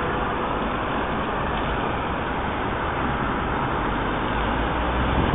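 Steady noise of busy road traffic passing, with a deeper rumble growing near the end.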